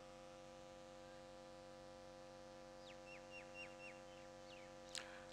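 Near silence with a steady low electrical hum, broken about three seconds in by four faint short high chirps in quick succession, and a faint click near the end.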